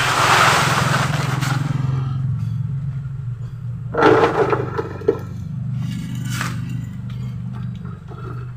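Hands scraping and dropping potting soil into a plastic bucket pot, with a rustling scrape over the first two seconds and another burst about four seconds in. A steady low drone lies underneath.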